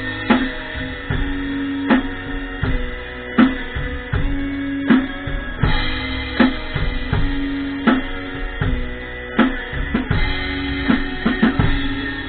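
Pearl drum kit played along to a rock song, with bass drum and snare over guitar. The heaviest hits land about every second and a half in a steady beat.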